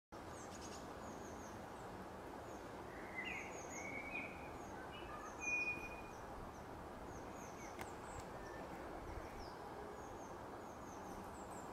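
Small songbirds giving short, high, thin chirps about once a second over a steady outdoor background hiss, with a few louder, lower whistled notes between about three and six seconds in.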